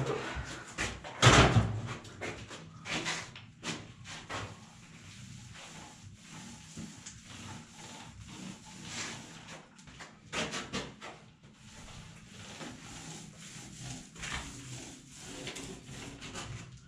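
Small paint roller being rolled over rough fresh plaster to apply primer, giving irregular swishes with a few knocks, the loudest about a second in.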